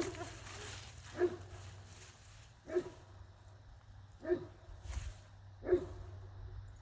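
A dog whining: four short, pitched cries, evenly spaced about a second and a half apart.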